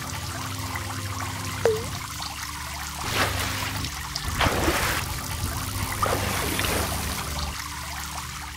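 Water sound effect: steady trickling and pouring, with louder splashy swells about three, four and a half and six seconds in, and a short swooping tone just under two seconds in.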